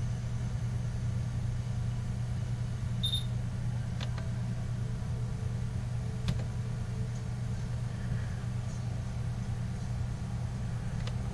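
Steady low hum of room or equipment noise, with a few faint clicks.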